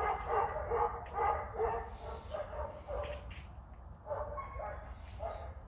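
Dog vocalising in a quick run of short, pitched yips and whines, several a second, breaking off briefly a little past halfway before starting again.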